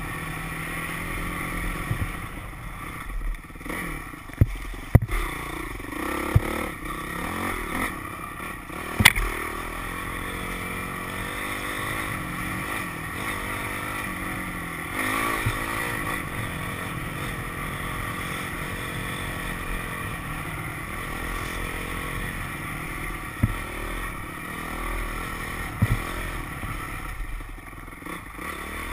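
Dirt bike engine running, its pitch rising and falling with the throttle, with several sharp knocks as the bike jolts over the rough ground.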